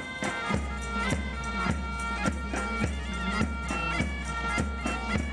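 Pipe band music: bagpipes playing a melody over a steady drone, with a drum keeping a regular beat a little under two strokes a second.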